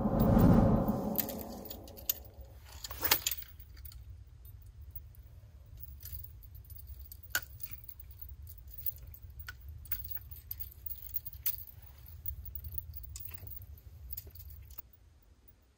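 Fishing rod and reel being cast and then wound in: a swelling whir about a second long at the start, then a low steady whir from the cranked reel with scattered clicks and rattles, stopping about 15 seconds in.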